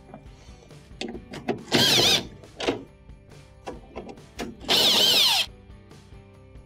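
Cordless drill/driver backing Phillips screws out of a washing machine's console cover, in two short runs of motor whine that waver in pitch. Short clicks of the driver and screws come between the runs.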